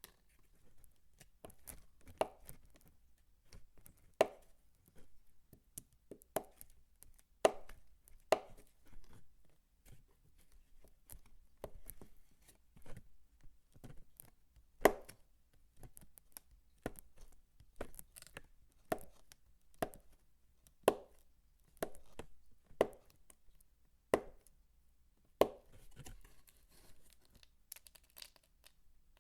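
Soap being chopped with a knife: irregular crunchy cuts about once a second, a few much louder than the rest, then a softer stretch of crackling near the end.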